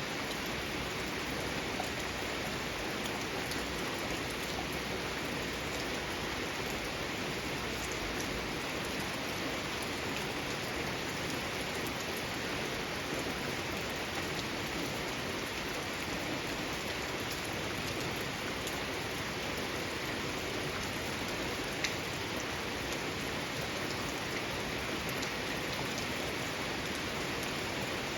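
Steady rain falling in a garden, with scattered individual drops tapping and one sharper drip about two-thirds of the way through.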